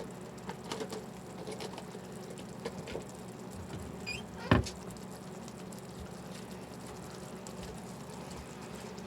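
Milk gravy simmering in a pan, with scattered small bubbling pops as it thickens, over a steady low hum. One sharp knock about four and a half seconds in.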